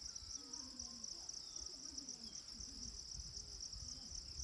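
Steady, high-pitched chorus of insects buzzing with a fine rapid pulse, with faint distant voices low underneath.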